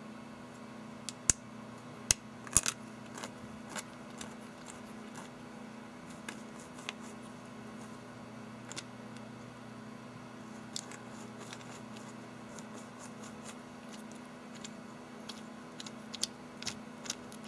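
Sharp clicks and taps of hard 3D-printed plastic parts being handled and fitted together, with a few loud clicks in the first few seconds and a cluster near the end, over a steady low hum.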